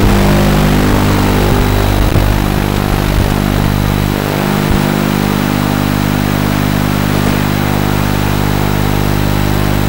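TBS Gemini mini hexacopter's electric motors and propellers heard through its onboard audio feed: a steady, loud hum of several low tones with a hiss above, wavering slightly in pitch a few seconds in.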